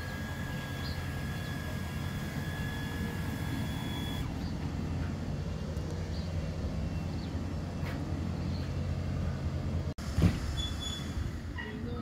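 Steady low engine drone, with a thin high whine over it for the first four seconds. A short sharp thump just after ten seconds is the loudest moment.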